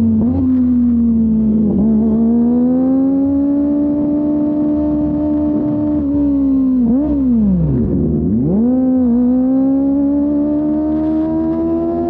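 Kawasaki Ninja ZX-25R's inline-four engine running at high revs through a Yoshimura R-11 exhaust. It holds a steady, high engine note, which drops sharply and comes back up about eight seconds in, then climbs steadily toward the end as the bike accelerates.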